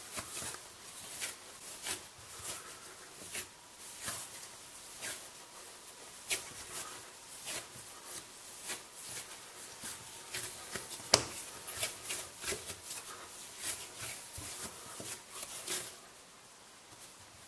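Hands kneading soft wholemeal yeast dough on a wooden board: repeated soft pats and rubbing, with one sharper tap about eleven seconds in.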